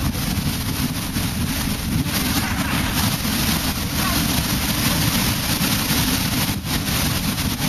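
Steady roar of a large waterfall and churning water, heard from a boat close below it, with heavy wind buffeting on the microphone.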